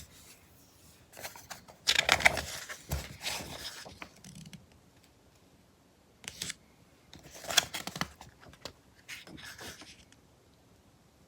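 Magazine pages being turned and handled, paper rustling in several separate bursts: a longer one about two seconds in, then shorter ones further on.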